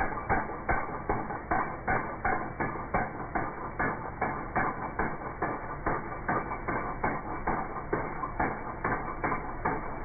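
Impact wrench hammering steadily on a lug nut of a combine wheel, with an even, pulsing rhythm, as the wheel of a replacement tire is bolted on.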